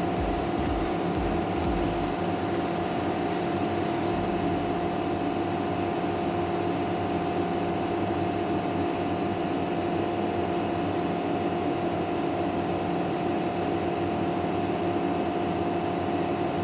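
Standby generator set running steadily, a constant hum with a steady whine over it. There is low knocking in the first two seconds.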